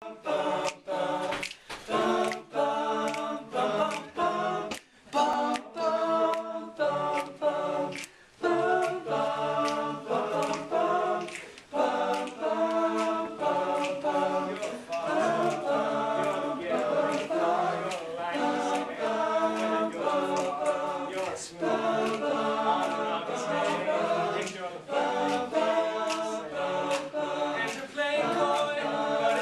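Male high-school a cappella group singing together in close harmony, several voices at once, with a steady beat of sharp clicks under the singing and a couple of brief breaks early on.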